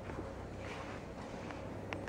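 Footsteps crunching in fresh snow, a step about every second, over a steady low rumble.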